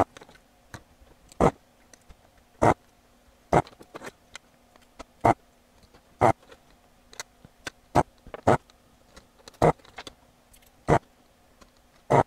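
Sharp clicks of a heated spring-loaded desoldering pump, about a dozen, roughly one a second, as solder is sucked off capacitor leads on a circuit board. A faint steady hum runs underneath.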